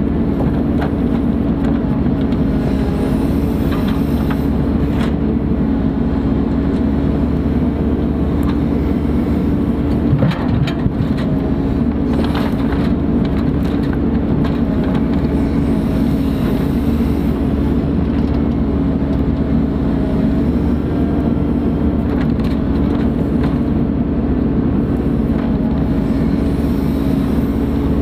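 Ponsse Buffalo forest machine's diesel engine running steadily with a constant drone, and a few knocks about ten seconds in.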